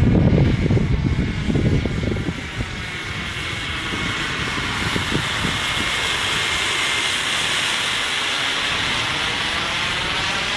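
JetCat P20SX miniature kerosene turbine in a small foam model jet in flight: a steady high whine over a jet hiss, swelling gently as the plane passes, with a low rumble over the first couple of seconds.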